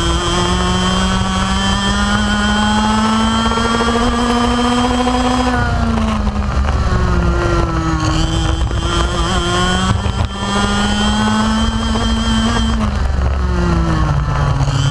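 125cc two-stroke kart engine at race pace. The revs climb steadily for about five seconds, drop sharply as the kart slows for a corner, climb again and drop once more a second before the end.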